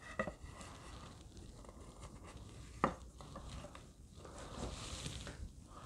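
Quiet handling noises as a wooden workpiece and a metal protractor are picked up and fitted together: soft rustles and small clicks, with one sharp knock about three seconds in.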